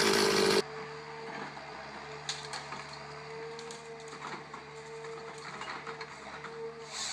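A chainsaw running that cuts off suddenly about half a second in, followed by a quieter steady mechanical hum with scattered faint clicks.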